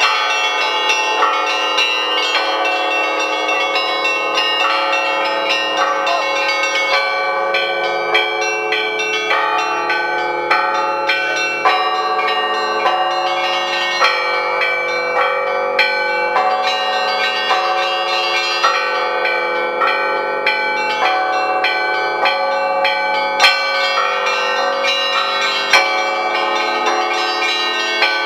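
Russian-style church bells rung in a joyful festive peal: a full set of large and small bells, fixed in place, with their clappers pulled on ropes from a ringing console. The strokes come quickly and overlap, the deep bells sounding under a busy pattern of higher ones, with no pause.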